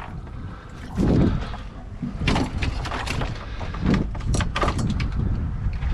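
Irregular knocks and clatters of handling a freshly landed fish and gear on a fiberglass boat deck, a heavier thump about a second in, over a steady low rumble.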